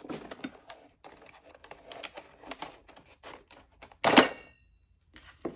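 Tools and wood being handled on a workbench: scattered small clicks and scrapes, then one loud knock with a short ring about four seconds in, and a lighter knock near the end.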